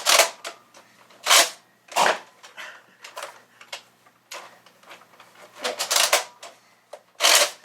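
Nerf Rival Artemis pump-action foam-ball blaster being pumped and fired in single-shot mode: an irregular series of sharp mechanical clacks and pops, the loudest a second or so apart.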